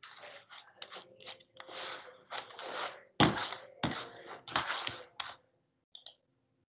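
Irregular rustling and crunching handling noises close to the microphone, a string of short bursts with the loudest about three seconds in, dying away after about five seconds.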